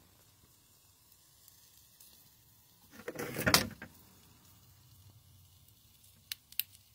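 A brief scraping, sliding noise about three seconds in, swelling and then cutting off, followed by two sharp clicks near the end.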